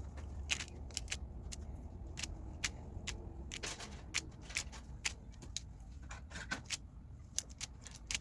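A fork crimping the edges of a filled pastry, its tines clicking against the work surface in sharp, irregular taps, roughly one to two a second, over a low steady hum.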